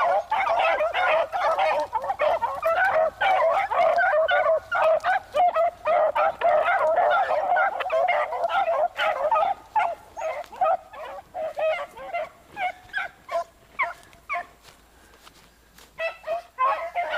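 A pack of hounds baying and yelping together in many overlapping high calls, dense at first and thinning out after about ten seconds, with a brief lull near the end before the cry picks up again: the hounds giving tongue as they run a rabbit.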